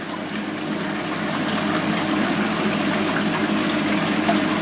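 Water in a plastic tub of koi sloshing and churning steadily as gloved hands hold and move a fish, over a steady low hum.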